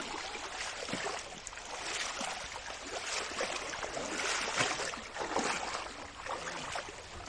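Water sloshing and splashing as people wade through a shallow river, in uneven swells over the rush of the current.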